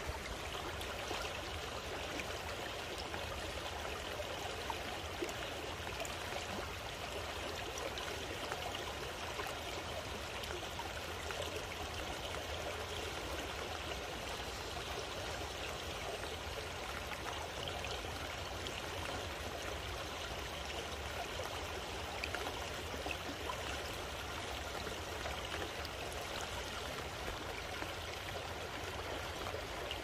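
Shallow stream flowing steadily past reed stems: a continuous, even rush of moving water.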